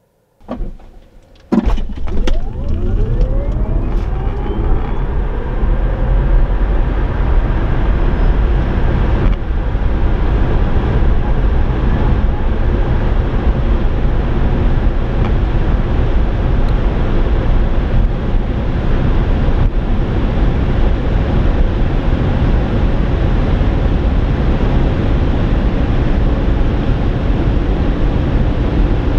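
Tesla Model S P85D's dual electric motors under full acceleration from a standstill, heard inside the cabin. A few sharp knocks come at the launch, then a motor whine rises in pitch over the first few seconds. It gives way to loud, steady road and wind noise as the car climbs toward its limited top speed.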